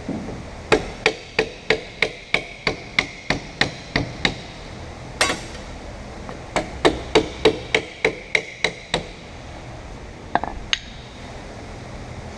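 Hammer blows, struck in two quick runs of about three a second with a short ring after each, followed by a few single hits near the end.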